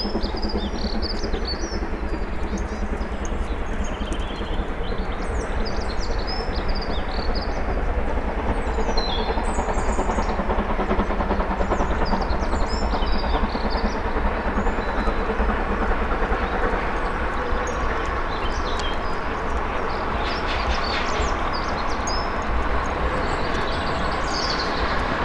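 Steam locomotive working a goods train as it approaches, a steady rumble of exhaust and rolling wheels, with birds chirping over it.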